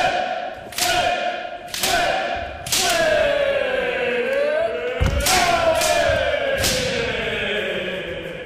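A group of kendo students shouting kiai together with each swing, about once a second four times, each shout starting with a thud. Then two long drawn-out kiai shouts falling in pitch follow, the second opening with a heavy thump about five seconds in.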